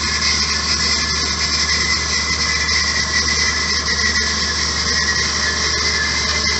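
Hyd-Mech S-20 Series II horizontal bandsaw running, a steady mechanical whine over a high hiss and a low hum.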